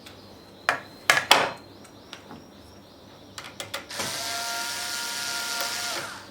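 A few sharp clicks of a tool on the laptop, then a small electric screwdriver runs steadily for about two seconds and stops abruptly, undoing a screw on the laptop.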